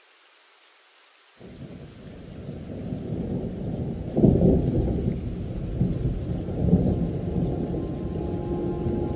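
Low rolling rumble of thunder over rain. It starts suddenly about a second and a half in, swells, and peaks around four seconds in. A sustained musical drone enters near the end.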